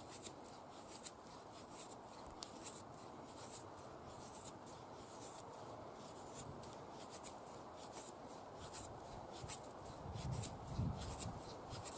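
Cold Steel SRK knife blade shaving curls off a stick for feather sticks: faint, quick scraping strokes, a few each second. Some low knocks join in near the end.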